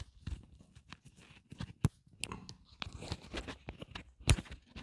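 Handling noise from a clip-on lavalier microphone being unclipped from clothing and handled: fabric rustling and scraping against the mic, broken by sharp knocks, the loudest about four seconds in.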